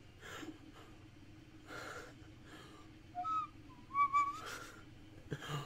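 Small 3D-printed PLA recorder blown: a few short, wavering, squeaky notes, the loudest about four seconds in. Some breathing comes before and after the notes.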